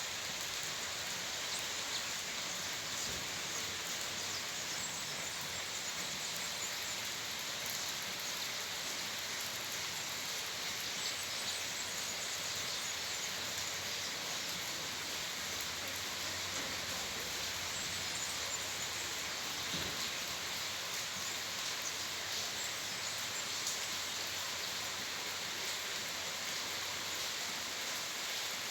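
Steady rain falling with no thunder, an even hiss with faint scattered drop ticks.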